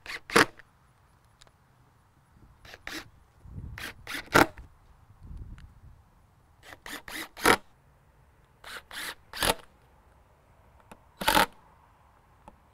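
Cordless impact driver driving screws through a steel strap hinge into a shutter: short bursts of sharp clicks, about six of them a second or two apart, with a brief low hum twice between them.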